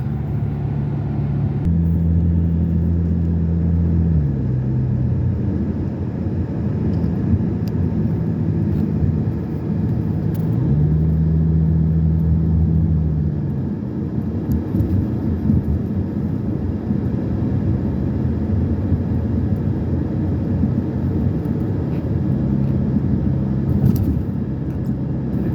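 Car driving along, heard from inside the cabin: steady road and tyre noise under a low engine hum. The hum rises in pitch about two seconds in, drops back a couple of seconds later, and does the same again about halfway through.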